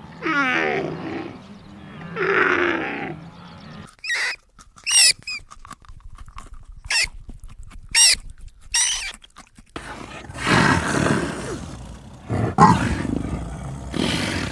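Animal calls in quick succession: three long calls that fall in pitch, then a string of short high chirps, then long harsh, noisy calls near the end.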